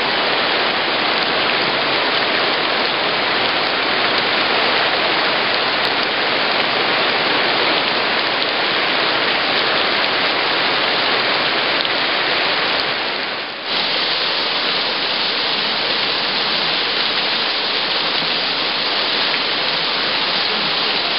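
Heavy downpour pelting waterlogged grass and standing water: a loud, dense, steady hiss of rain, with a brief dip about two-thirds of the way through.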